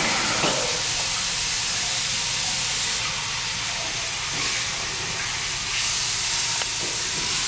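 Nespresso Vertuo capsule coffee machine brewing, spinning the capsule and pumping espresso into a mug: a steady hissing whir over a low hum, easing slightly about three seconds in and picking up again near six seconds.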